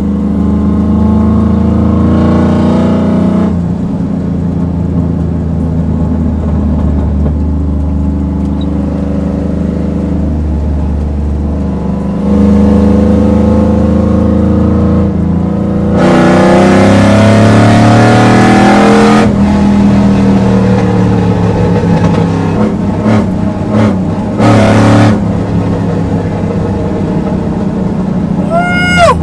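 Cammed Chevrolet Silverado single cab's LS V8, with tube headers and a near straight-pipe exhaust, heard from inside the cab while driving. It runs steadily, gets louder about twelve seconds in, then pulls hard with the pitch rising for a few seconds before backing off, with a brief loud blip a few seconds later.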